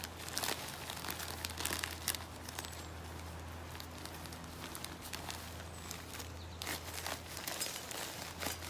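Plastic bag of pine wood shavings crinkling and crackling as it is handled and pulled open at a tear. The crackling is thickest in the first couple of seconds and again near the end, as the bag is tipped.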